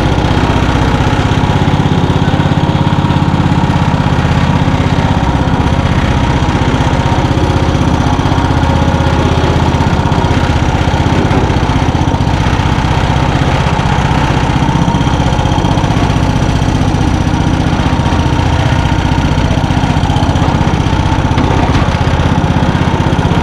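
Briggs & Stratton 15.5 hp engine of an MTD Yard-Man four-wheel-steering lawn tractor running steadily as the tractor drives along.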